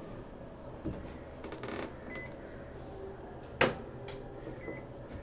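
Low room noise with one sharp knock about two-thirds of the way through and a lighter one about a second in.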